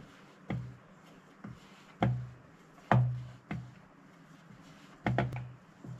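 Rolling pin and dough knocking and thudding on a wooden rolling board while dough is rolled out: about six low, dull knocks at uneven intervals, two of them close together near the end.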